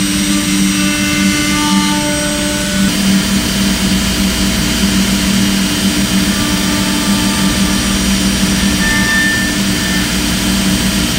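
CNC router spindle running steadily while its bit carves a wooden furniture leg turned on a rotary axis, giving a continuous machine hum with cutting noise. The sound shifts slightly about three seconds in.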